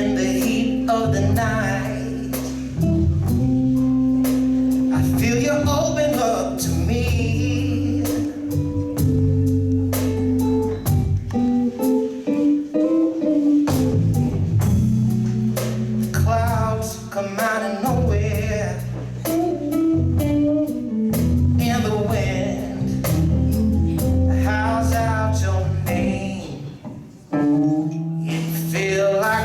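Live blues band playing, with electric guitar, bass and drums under a man singing.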